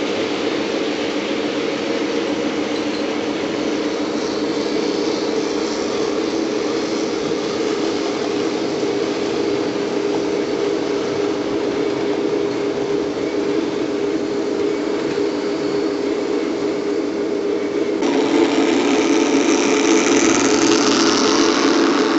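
00 gauge model diesel locomotive running, a steady mechanical drone with a hiss above it. About 18 seconds in it suddenly gets louder and brighter.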